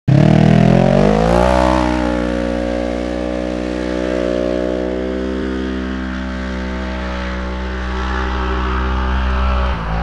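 Polaris RZR side-by-side launching from a rally stage start. The engine revs up sharply over the first second and a half, then holds an almost steady pitch as its belt-drive CVT takes it away, easing off slightly as it goes. The sound cuts off just before the end.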